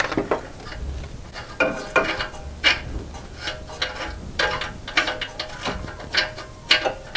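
Irregular light metallic clicks and clinks of hand tools, socket and sensor as a freshly loosened oxygen sensor is worked out of the exhaust.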